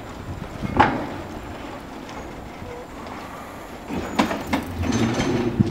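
Dunedin City Corporation electric tram no. 22 moving slowly along the track, with a sharp clank about a second in and a run of knocks and rattles near the end.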